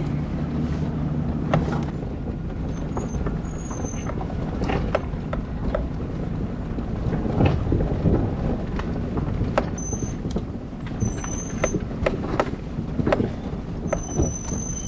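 Car driving slowly over a rough, rocky dirt track: a low engine hum and the rumble of tyres on dirt, with many scattered knocks and rattles and a few short high squeaks as the car and its towed trailer jolt over the bumps.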